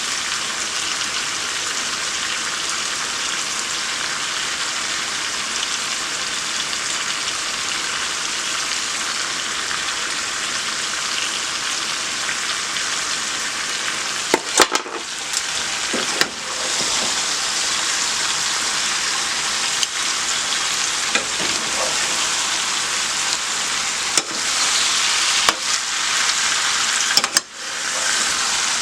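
Chicken and sausage sizzling steadily in a pot on high heat. From about halfway in, a few sharp knocks break in, with one brief drop in the sizzle near the end.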